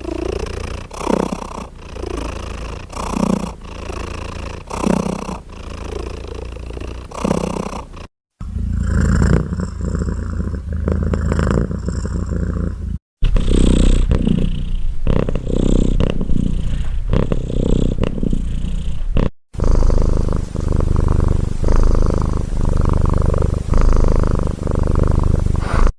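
Domestic cat purring loudly close to the microphone, the purr swelling and fading with each breath in and out. The purring breaks off abruptly three times in short silent gaps and picks up again.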